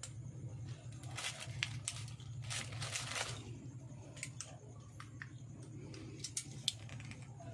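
Rustling and a few light clicks as the copper wire leads and the ferrite-ring coil assembly of a homemade generator are handled, with a steady low hum underneath.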